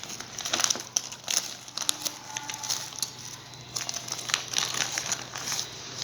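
Toy building blocks being handled and rummaged through: irregular clicks and rustles.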